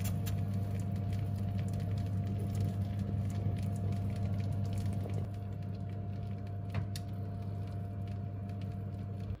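Oven fan running with a steady hum, while the hot tomato sauce and melted cheese in the baking dish sizzle with faint scattered crackles.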